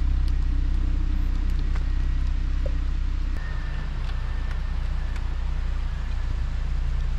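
Lada Niva driving, a steady low engine and road rumble that eases slightly about three and a half seconds in.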